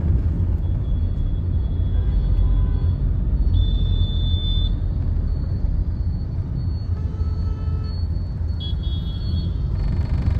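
Steady low rumble of road and engine noise heard inside a moving car's cabin, with surrounding traffic.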